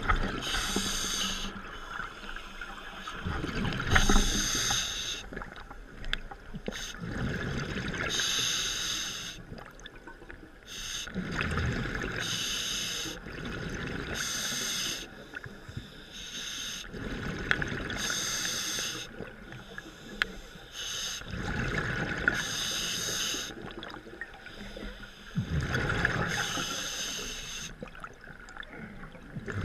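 Scuba diver breathing through a regulator underwater: a rush of breath and bubbles repeating about every four seconds, with a quieter hiss in between.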